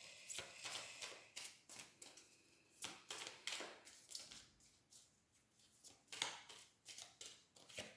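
Deck of oracle cards being shuffled by hand: faint, quick, irregular flicks and snaps of card against card, with a short lull about five seconds in before a last flurry.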